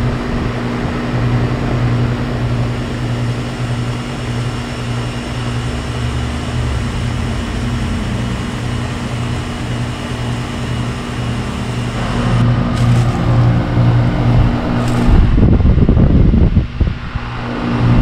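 Goodman GSH13 heat pump outdoor unit running in heat mode: a steady compressor hum under the rush of its condenser fan. Wind buffets the microphone in gusts near the end.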